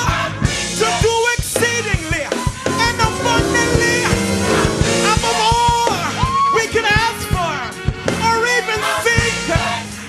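Upbeat gospel song: a sung lead vocal over drum kit and bass with a steady beat.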